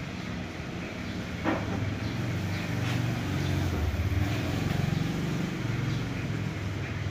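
A steady low engine-like rumble with a wavering pitch, and one sharp click about one and a half seconds in.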